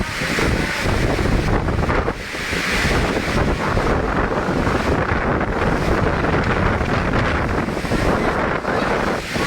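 Strong, gusting wind blasting across the microphone, a loud, continuous rush of noise that dips briefly about two seconds in and near the end.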